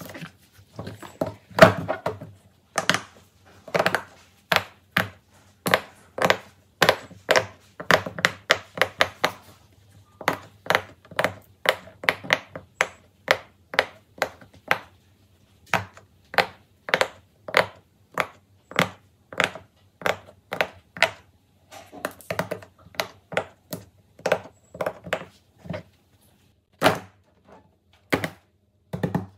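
Silicone pop-it fidget toy bubbles popping under a fingertip, a quick series of sharp pops several a second, in runs broken by short pauses. Near the end a few heavier single knocks as pop-it toys are set down on the board.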